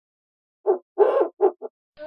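Owl hooting: four low hoots in quick succession, starting a little over half a second in, the second the longest and the last two short.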